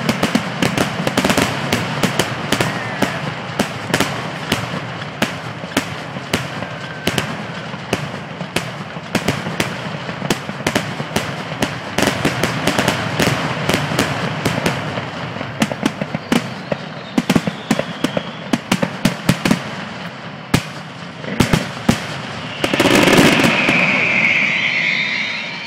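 Fireworks finale: a dense, rapid barrage of bangs and crackles, thinning out in the last third. It ends in a louder sustained rush of sound a few seconds before the close, which then fades.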